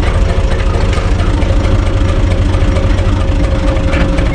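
Universal U445 tractor's three-cylinder diesel engine running steadily at low revs while the tractor backs up slowly, heard from the driver's seat in the open cab, with a faint steady whine above it.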